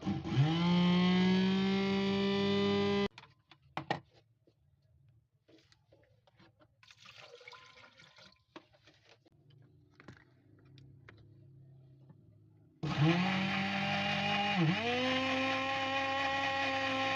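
Electric blender motor, back in running order after repair of its burned motor, spinning at speed with a steady whine; it stops abruptly about three seconds in. A few faint clicks and knocks follow, then the motor starts again, spins up, dips briefly once and runs on.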